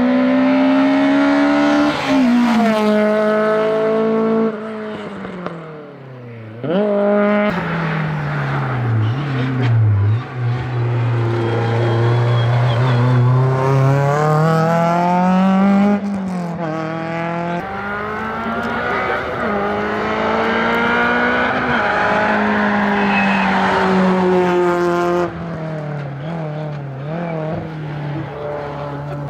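Competition car engines running flat out on a hillclimb, the engine note climbing as the cars accelerate and dropping back when they lift off or shift. The sound cuts abruptly several times between passes.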